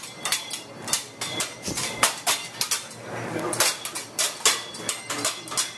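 Kitchen pan and utensils clattering: a busy run of sharp knocks and clinks.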